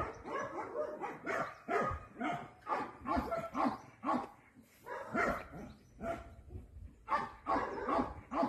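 Young black-and-white dog making a rapid string of short, whiny bark-like calls, about two a second.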